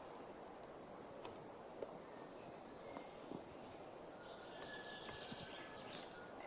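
Faint outdoor quiet with a few light clicks, and a small bird chirping in a quick twittering burst about two-thirds of the way in.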